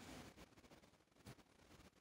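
Near silence: quiet room tone with a few faint ticks.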